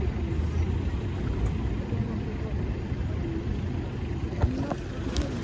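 Steady low rumble of a 71-402 tram in motion, heard from inside the passenger cabin.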